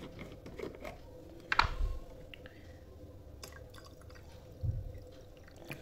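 Cold water poured from a plastic bottle into a glass. A sharp click comes about a second and a half in, and a dull thump near the end.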